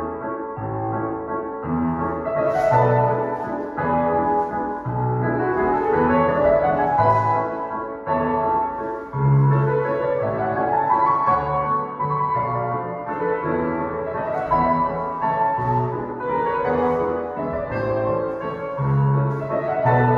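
Classical piano music accompanying a ballet solo, with regular low bass notes under the melody and two rising runs of notes, about a quarter and half way through.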